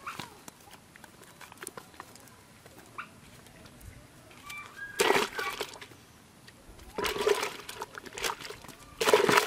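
Fish splashing in a plastic bucket of water: three short bursts of splashing, about two seconds apart in the second half.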